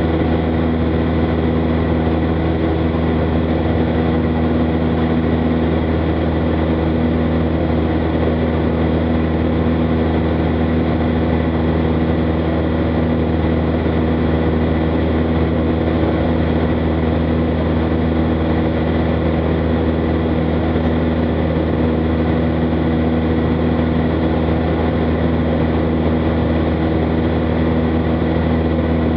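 Single-engine light aircraft's piston engine and propeller running steadily at constant cruise power, heard inside the cockpit as an even hum with a fixed pitch.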